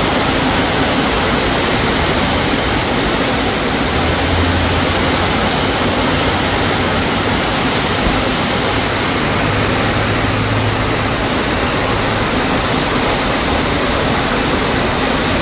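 Rain falling steadily, a loud even hiss. A low hum rises underneath it three times, briefly each time.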